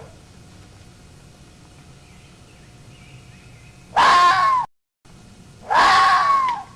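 Fox giving two loud, high-pitched crying calls, each under a second long, the pitch dropping at the end of each.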